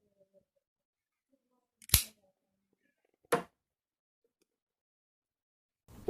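Two sharp metallic clicks from a Zippo lighter being handled, about a second and a half apart.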